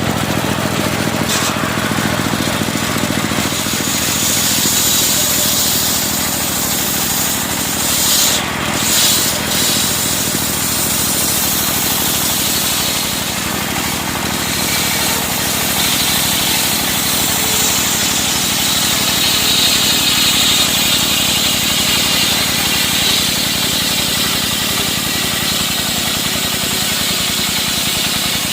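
Engine-driven circular sawmill running steadily while the blade saws timber into planks: a constant engine note under a high sawing hiss that swells and eases as the cut goes on.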